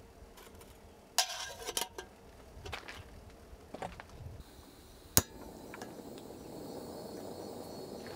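Metal pots and cookware clanking as they are set down, then one sharp click about five seconds in as a canister camping stove is lit, followed by the stove burning with a steady hiss.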